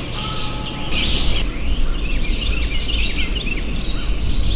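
Songbirds singing in chorus, many quick chirps and whistles overlapping, over a low rumble that grows louder about a second in.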